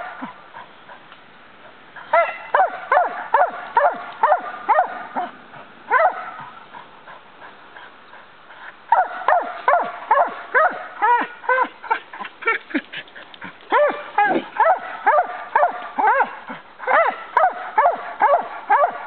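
A dog yipping and whining in fast runs of short high calls, several a second, broken by a few pauses: the excited, frustrated cries of a dog held back on a leash from the water where someone is fishing.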